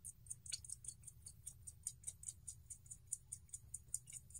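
Faint rapid clicking, about six small clicks a second, as a screw is turned and tightened into a carbon-fibre quadcopter frame.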